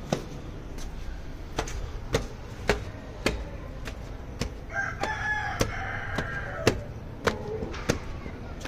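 A rooster crows once, about five seconds in, for about a second and a half. Regular short knocks sound about twice a second around it.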